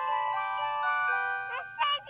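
A mobile phone's message alert tone: a short bell-like synthesized melody of stepped notes from the phone's Yamaha YMU765 sound chip. About one and a half seconds in, a recorded voice prompt begins.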